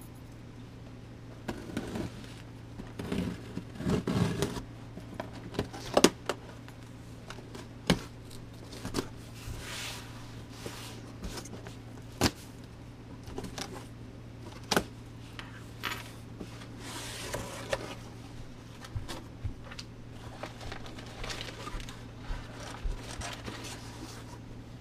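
A cardboard shipping box being opened by hand: the packing tape is slit along the seam with a key, the flaps are pulled open and the plastic-wrapped contents handled, giving irregular scrapes, tearing, crinkling and sharp knocks.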